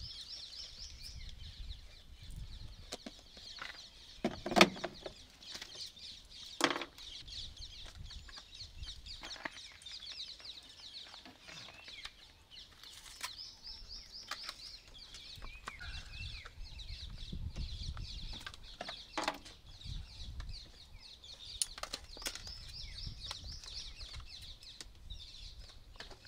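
Birds calling in the background with repeated fast, high trilling phrases. Two sharp knocks stand out about four and a half and six and a half seconds in.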